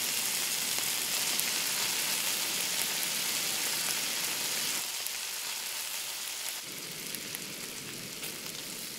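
Fillet steak sizzling in oil in a frying pan on a gas camping stove. The sizzle is a steady hiss that eases a little about five seconds in.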